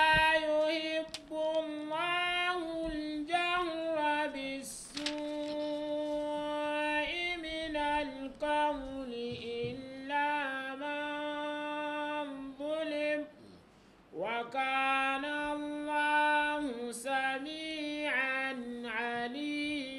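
A man reciting a Quranic verse in a melodic chanted style, holding long notes that rise and fall, with a brief pause for breath about fourteen seconds in.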